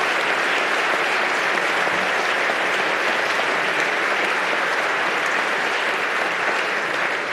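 Sustained applause from a large audience of lawmakers, clapping at an even level.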